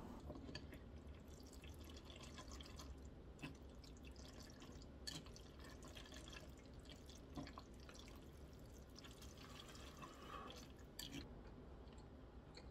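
Near silence: room tone with a faint low hum and scattered faint clicks and taps, about one every second or two.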